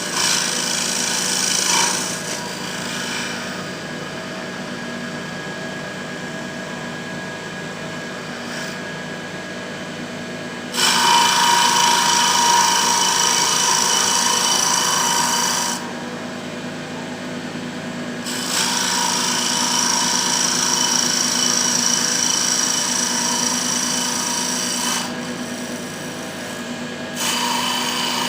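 Mini CNC wood lathe running with a steady motor hum while its turning tool cuts the spinning wood in passes: each pass is a louder hissing scrape lasting several seconds, one brief near the start, two long ones in the middle and another near the end.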